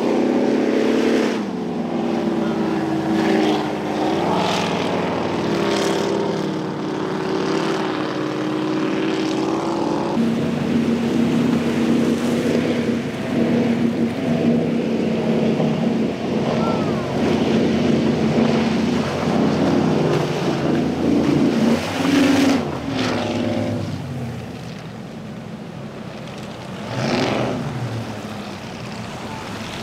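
Engines of offshore performance powerboats running hard at speed over rough water, over a steady rush of spray. Their pitch shifts as the throttle changes, and near the end one pitch briefly rises and falls.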